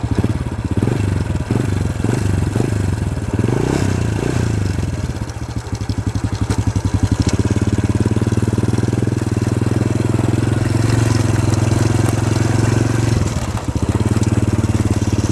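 Motorcycle engine running as the bike is ridden, its pitch rising and falling over the first few seconds, then settling into a steady drone from about halfway.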